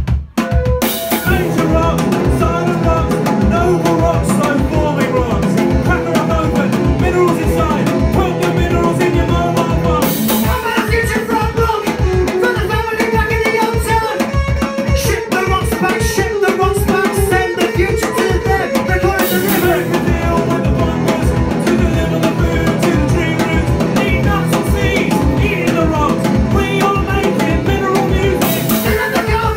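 Live indie-punk band playing loud: a fast, steady drum-kit beat with electric guitars, after a brief drop just at the start.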